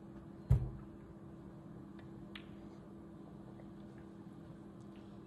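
A single sharp knock about half a second in, then a few faint clicks over a steady low hum.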